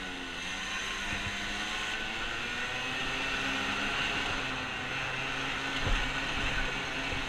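ATV engine running under throttle, its pitch rising and falling as the rider accelerates and eases off, with wind rushing over the microphone and a few low thumps from bumps, the strongest about six seconds in.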